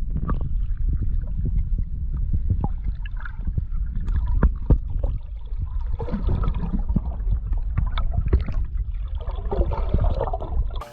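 Water sloshing and splashing, with irregular knocks over a low rumble.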